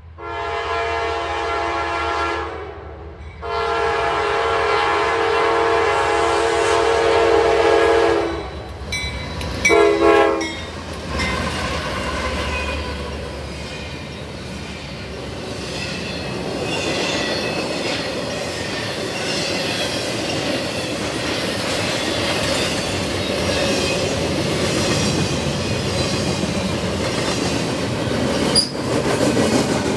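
Diesel locomotive's Nathan K5LA five-chime air horn sounding two long blasts and a short one, then an intermodal freight train passing close by: a steady rumble of wheels on rail with clickety-clack and some wheel squeal.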